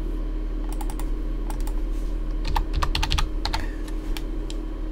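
Computer keyboard keystrokes: scattered key clicks, with a quick run of them about halfway through, over a steady low electrical hum.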